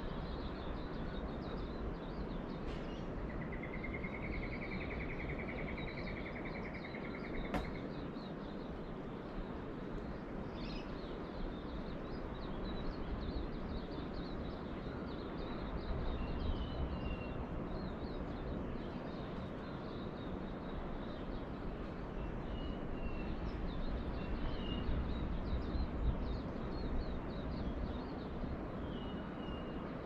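Steady low wash of ocean surf, swelling now and then, under a dawn bush chorus of many tiny high chirps. A rapid high trill, rising slightly, starts about three seconds in and lasts about four seconds, and a single sharp click comes just after it. A few short bird chirps are scattered later on.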